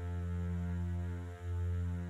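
Keyboard holding a low sustained chord, deep and steady, with a brief break about one and a half seconds in.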